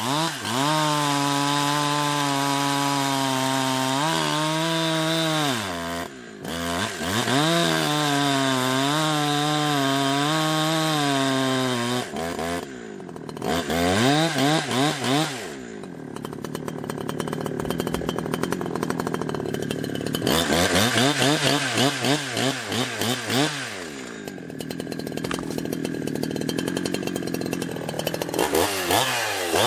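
Farmertec Holzfforma G372 two-stroke chainsaw running under load while cutting firewood. The engine pitch wavers as it works through the wood, with brief drops in speed about six and twelve seconds in. After that the engine revs up and down repeatedly between cuts.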